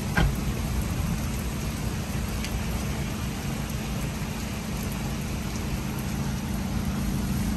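Heavy rain falling steadily on a flooded street, a constant hiss of drops, with a steady low hum beneath it and one sharp tap just after the start.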